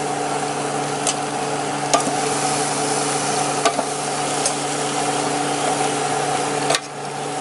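Raw chicken wings sizzling as they are laid into a hot air fryer basket, over a steady hum, with a few sharp clicks of tongs against the basket. The hiss drops briefly near the end.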